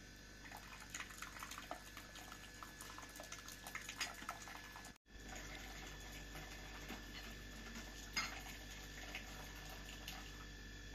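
Faint cooking sounds: scattered small clicks and taps through the first half, then, after a brief break, a faint steady hum with a few isolated clicks.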